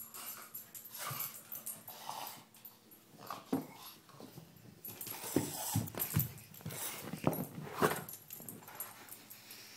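Boston Terrier making play noises while mouthing and biting a basketball: a string of short, irregular sounds that get busier and louder about a third of the way in and ease off near the end.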